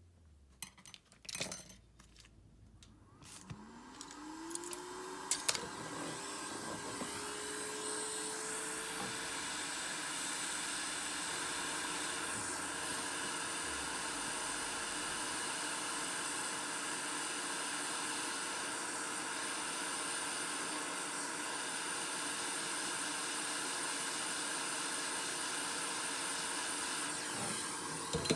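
A few clicks, then a small electric blower motor starts about three seconds in. Its whine rises in pitch and levels off, and it runs on steadily with a strong hiss of air.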